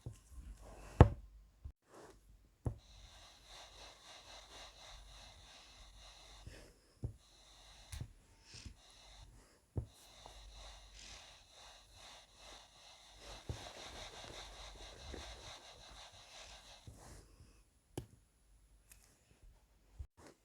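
Scattered knocks and clicks over a faint hiss of room tone, the sharpest knock about a second in, others coming irregularly every few seconds.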